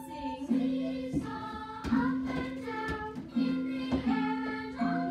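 Children's music: a woman and children singing a song over a low accompaniment note that is struck again about every 0.8 seconds.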